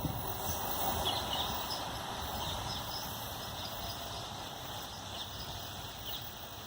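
A passing passenger train's running noise fading steadily as it recedes down the line, with a few short bird chirps over it.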